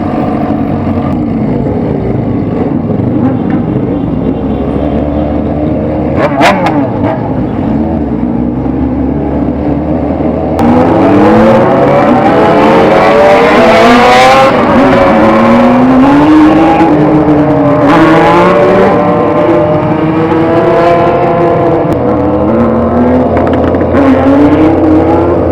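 Motorcycle with a loud four-inch exhaust running steadily. From about ten seconds in it revs up and down repeatedly, the pitch rising and falling several times.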